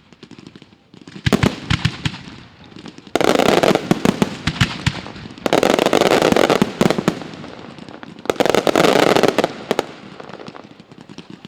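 Daylight fireworks going off: scattered sharp bangs, then three dense volleys of rapid reports and crackling, about three, five and a half and eight seconds in.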